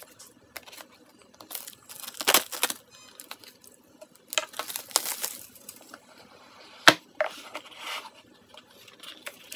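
Clear plastic shrink-wrap being picked at, torn and crinkled off a cardboard smartphone box, in irregular rustling crackles with a sharp click about seven seconds in.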